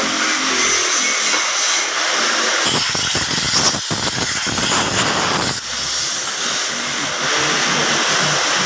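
Steady, loud hissing background noise, with a stretch of short knocks and rattles from about three to five and a half seconds in.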